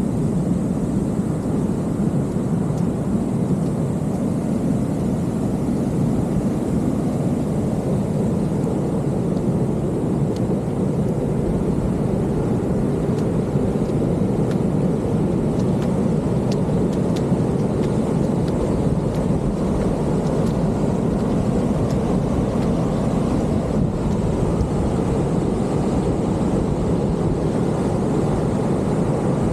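Steady low roar of ocean surf breaking on the beach, with wind.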